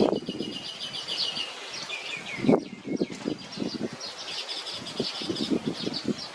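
Weaver birds chirping in rapid, busy twitters, over soft rustling. There are two louder thumps, one at the start and one about two and a half seconds in.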